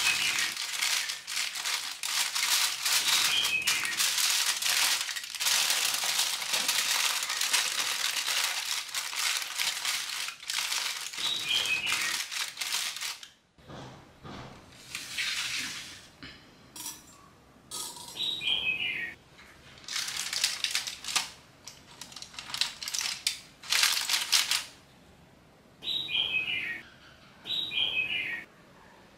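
Aluminium foil crinkling as hands fold and crimp the edges of a foil packet. It runs continuously for about the first half, then comes in short separate bursts.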